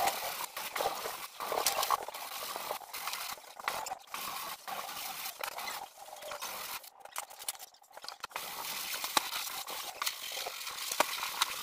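Hand-sanding or scraping of dried filler patches on a plastered wall: irregular rasping strokes of a hand tool against the wall, with scattered small knocks and a short lull past the middle.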